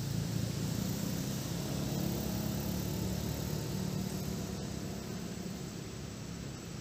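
Motor vehicle engine running with a low rumble that swells slightly over the first few seconds and eases off near the end.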